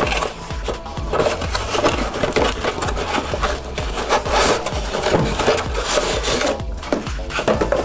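Cardboard packaging rubbing and scraping as a box's printed outer sleeve is slid off its inner card tray, with background music underneath.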